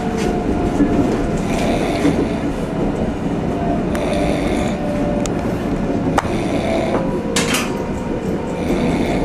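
A man snoring, over the steady rumble and clatter of a moving train carriage.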